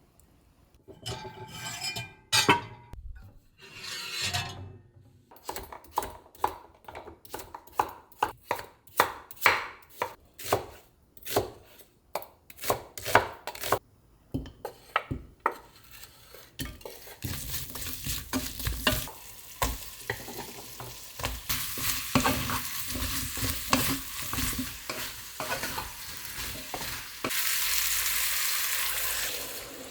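A knife chopping on a cutting board in quick, even strokes, a couple to the second. About halfway through it gives way to food sizzling in a hot cast-iron pan while it is stirred, the sizzle growing louder near the end.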